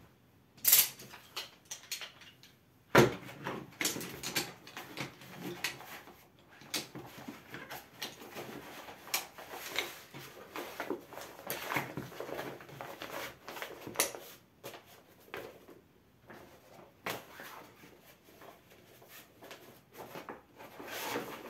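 Decathlon Quechua MH500 folding low chair being packed away by hand: its fabric rustles and crinkles as it is folded and rolled around the poles, with scattered clicks and knocks of the poles, one sharp knock about three seconds in. Near the end the rolled chair is pushed into its carry bag.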